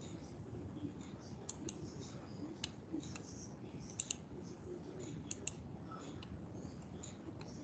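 Irregular sharp clicks of a computer mouse and keyboard, about a dozen scattered through, over a steady low background noise.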